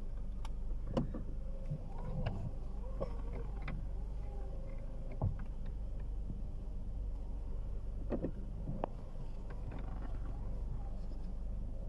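Steady low rumble inside a Toyota car's cabin, with scattered light clicks and knocks through it.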